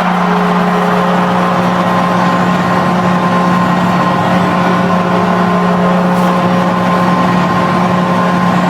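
Barys Astana's ice hockey goal horn sounding one long, steady, unbroken blast.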